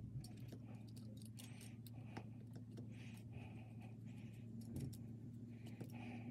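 Faint small clicks and ticks of metal tweezers and a paintbrush working a tiny metal ladder part, over a steady low electrical hum.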